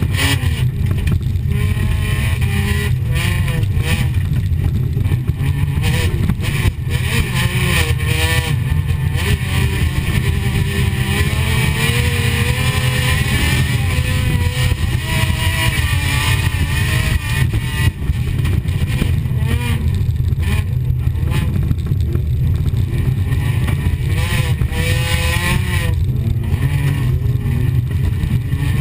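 Folkrace car's engine heard from inside the cabin, driven hard on a dirt track: the revs keep rising and falling through throttle lifts and gear changes, over a heavy low rumble.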